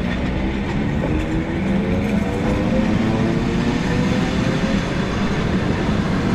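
Commuter train running, a steady loud rumble with a motor whine that rises gradually in pitch over the first few seconds as the train picks up speed.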